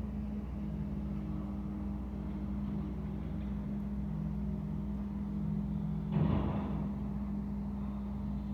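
Steady low mechanical hum from a running engine or machine, with a brief louder rush about six seconds in.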